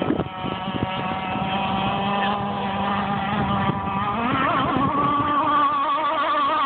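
Two-stroke gas engine of a radio-controlled sport hydroplane racing boat whining at speed. About four seconds in, its pitch rises and then wavers up and down as the boat runs across the water.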